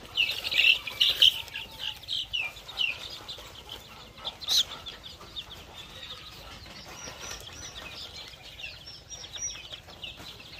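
Young ornamental chicken chicks peeping: many short high peeps, busiest in the first few seconds and scattered after that. A single sharp click comes about halfway through.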